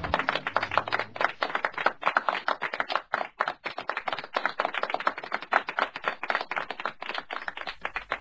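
Audience applauding: many hands clapping, dense and irregular, with no music.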